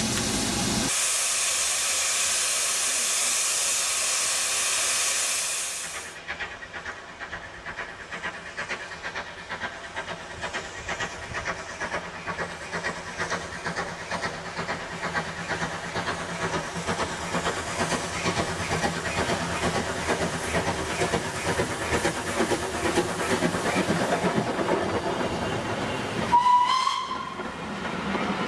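Steam locomotive hissing loudly as it stands, stopping suddenly at a cut. A steam train then approaches with its exhaust beats growing steadily louder, gives a short whistle blast near the end, and passes in a rush of steam.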